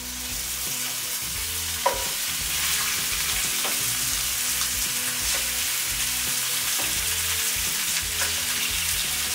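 Floured veal shanks searing in hot olive oil in a pan: a steady sizzle that starts as the meat goes in, with a sharp knock about two seconds in.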